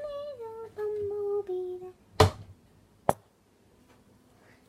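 A child humming a short tune of a few held notes, then two sharp knocks about a second apart, the first much louder.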